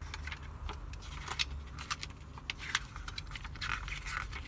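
Small metal harness-mounting parts (bolts, sleeve, mount) clicking and clinking as they are handled and tried on an anchor point, over a low steady hum.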